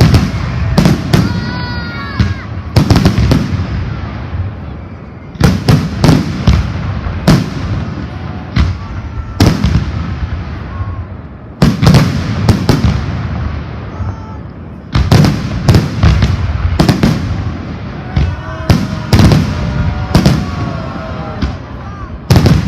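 Fireworks salute: shells bursting in rapid clusters of loud bangs, with a fresh volley starting every few seconds.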